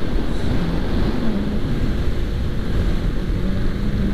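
Steady wind rush on the microphone of a KTM RC390 motorcycle under way, with the single-cylinder engine's low hum underneath.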